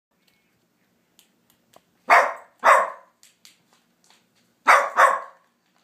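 Small dog barking: four barks in two pairs, the second pair a couple of seconds after the first.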